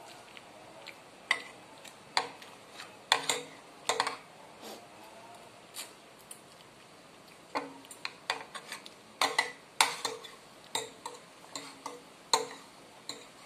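Metal spoon and fork clinking and scraping against ceramic plates and bowls during eating. The sharp clinks, each with a brief ring, come scattered at first, pause a moment in the middle, then come in a denser run.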